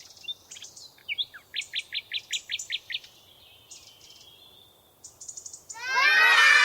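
Bird chirping: a quick run of short, high chirps, each falling in pitch. Near the end, a much louder sound of many overlapping falling tones comes in suddenly.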